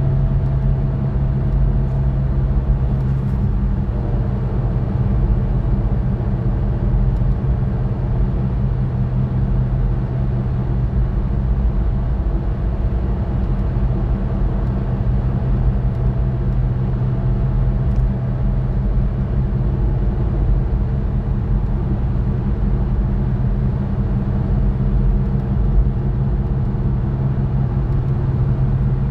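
Steady road noise inside a car's cabin cruising at highway speed, about 60–65 mph: a constant low drone.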